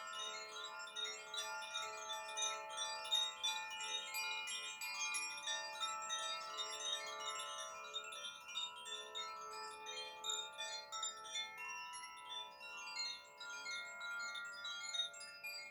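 Koshi chimes, bamboo wind chimes with tuned metal rods inside, being gently swirled. Many clear ringing notes overlap into a continuous shimmer.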